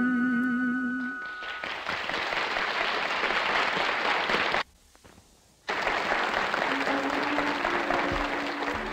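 A song ends on a held note with orchestra about a second in, then a studio audience applauds. The applause cuts out abruptly for about a second midway, and orchestra music comes in under the applause near the end.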